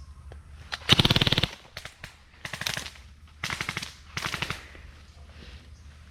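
Airsoft guns firing on full auto: several short bursts of rapid snapping shots, the loudest and longest about a second in, with three or four fainter bursts following.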